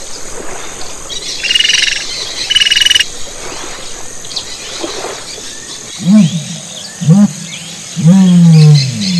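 Sheep bleating three times from about six seconds in: two short calls, then a longer, louder one. Earlier come two short, high, rapidly pulsing calls, with faint bird twittering in the background.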